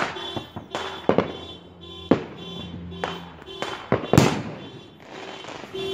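Fireworks going off: a string of about six sharp bangs and pops, the loudest about four seconds in.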